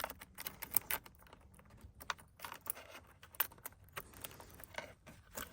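Irregular light clicks, taps and rattles of small parts being handled and fitted, with a few sharper knocks.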